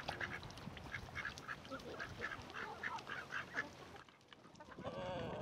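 Ducks quacking, short calls coming about two or three a second, with a longer, lower call near the end.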